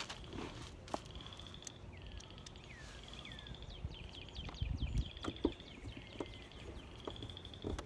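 Birds singing outdoors: a short high trill repeats about every second or so, with a few falling whistled notes. Scattered small clicks and low knocks come from hands working at a car's interior door panel, loudest around the middle.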